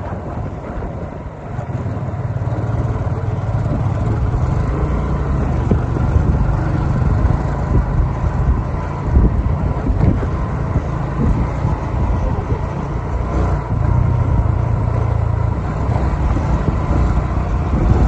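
Motor vehicle running, a steady low rumble that grows a little louder over the first couple of seconds.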